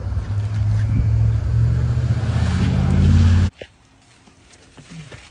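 Car engine running as the car drives along, a steady low hum with road noise, which cuts off suddenly about three and a half seconds in. Quiet follows, with a few faint small knocks.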